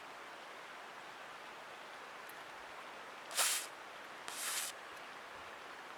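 WD-40 aerosol can spraying two short hissing bursts about a second apart, the second one quieter, over a faint steady room hiss.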